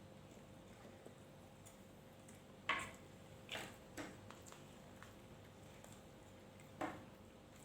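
Quiet eating sounds: a few short, sharp clicks and smacks from eating the meal, the first the loudest, three close together in the middle and one more near the end, over a faint steady hum.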